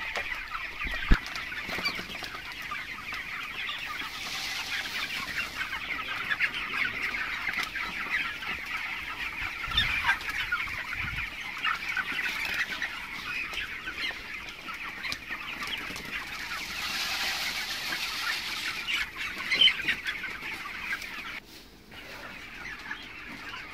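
A large flock of 22-day-old broiler chickens clucking and peeping continuously, many birds at once, with a sharp knock about a second in.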